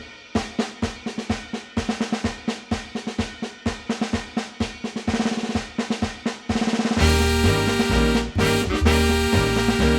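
Background music: a stretch of snare and kit drum hits that builds toward a roll, then the full band with brass comes back in about seven seconds in.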